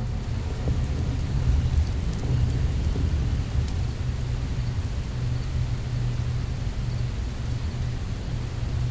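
Dark ambient soundtrack: a steady low rumbling drone under an even hiss of noise, with no clear melody.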